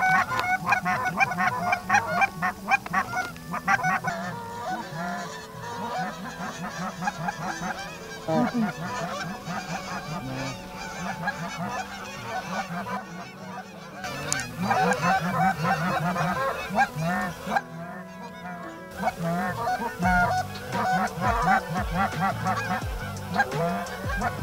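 A flock of geese honking in flight, many overlapping calls at once, with two brief gaps near the middle.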